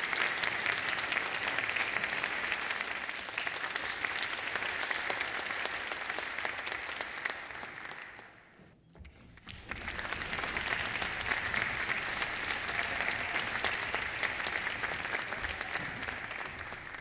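Concert hall audience applauding to welcome the soloist and conductor onto the stage. The clapping breaks off briefly about halfway through, then picks up again and tapers away near the end.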